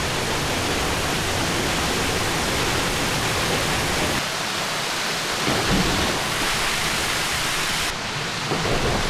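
Waterfall rushing: a steady, dense roar of falling water, whose sound shifts abruptly about four and about eight seconds in.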